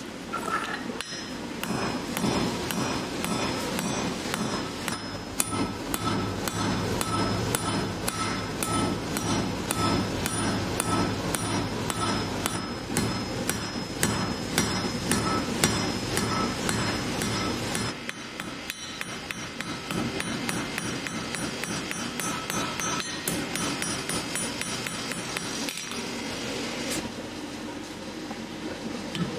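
Hand hammer striking red-hot steel on an anvil in a steady run of blows, each with a bright metallic ring from the anvil. About eighteen seconds in the blows thin out and grow quieter, then pick up again.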